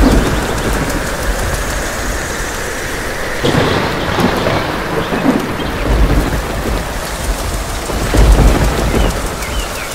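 Thunderstorm: steady heavy rain with deep rolls of thunder about six and eight seconds in, the second the louder.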